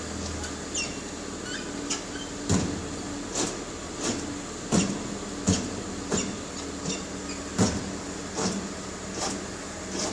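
Hyundai XG300 suspension squeaking and creaking over and over as the car moves, short squeaks about once a second at uneven spacing over a steady low hum. The owner suspects a bushing or the shocks.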